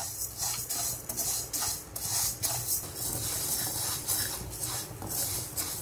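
Dry rice grains stirred and scraped around a nonstick kadai with a slotted spatula while being dry-roasted. Each stroke makes a rattling, rustling swish, about two a second.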